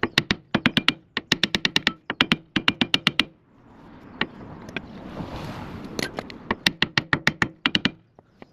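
Rapid hammer blows on metal, in quick runs of several strikes about five a second with a short ring after each, pausing for a couple of seconds in the middle before another run.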